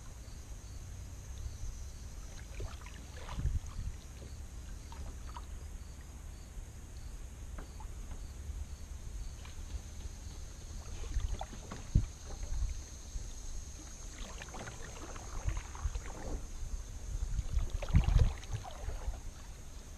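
A kayak drifting on open water, with water lapping at the hull, wind on the microphone and a steady high insect drone. Two sharp knocks on the boat come about twelve and eighteen seconds in.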